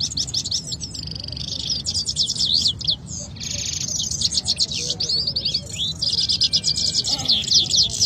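Two caged canaries singing against each other in a song contest: fast, unbroken trills and rolls of high notes, their phrases overlapping.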